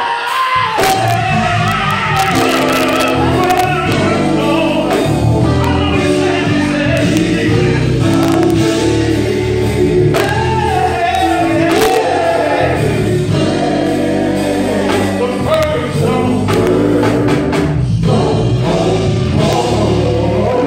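Gospel quartet performing live: a male lead vocalist singing into a microphone over backing voices, electric bass, guitar and a drum kit, with sustained sung notes and steady drum strikes.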